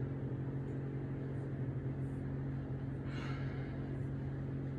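Steady low mechanical hum of a room, holding one low pitch with fainter higher tones above it, with a short soft hiss about three seconds in.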